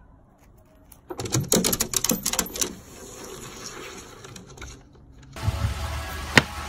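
Corgi's claws clicking and scrabbling rapidly on a plastic playground slide as it runs up it, a dense run of taps that then thins out. Near the end comes a low scraping rumble with one sharp knock.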